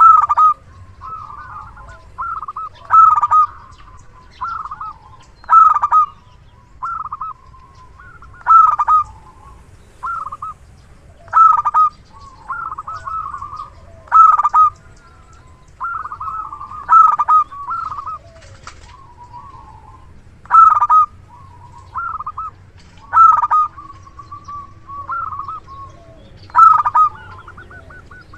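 Zebra dove (perkutut) singing with a big voice. It gives a steady run of short rolling coos, a loud one about every second and a half with softer coos in between.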